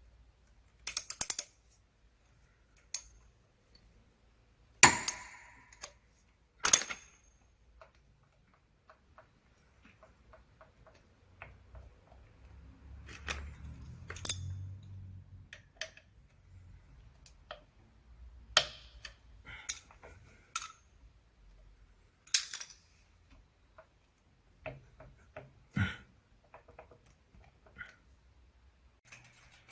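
Metal hand tools and parts clinking and knocking, about ten separate sharp clicks with pauses between them.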